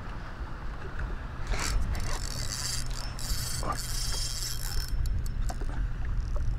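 Fishing reel whirring and ratcheting with something pulling on the line and the rod bent under load. The whirr runs from about a second and a half in to nearly five seconds, then gives way to scattered clicks. A steady low hum sits underneath.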